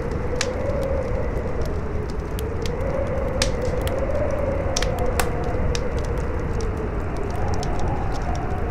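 Wood fire crackling with frequent sharp pops, over a howling wind whose moaning tone rises and falls slowly, with a low rumble of wind beneath.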